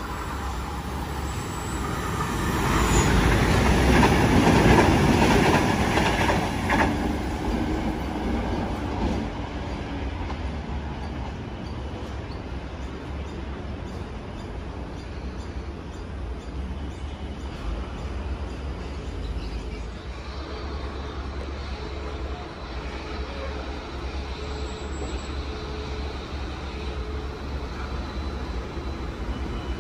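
Sydney Trains double-deck electric passenger train running through the station, its sound building from about two seconds in, loudest around four to five seconds in, and fading by about eight seconds. After that a steady, quieter rumble of distant rail and city noise.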